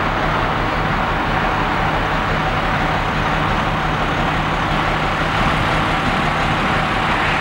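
A large vehicle's engine idling steadily, a constant hum with no changes.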